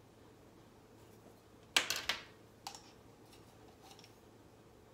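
Measuring spoon clicking and scraping against a small yeast jar as dry yeast is scooped out and tipped into a bowl: a quick rattle of clicks a little under two seconds in, then a few single light clicks.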